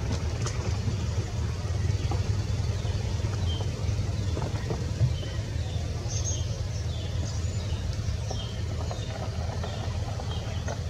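A steady low rumble, with faint, short, high bird chirps repeating about once a second, more often in the second half.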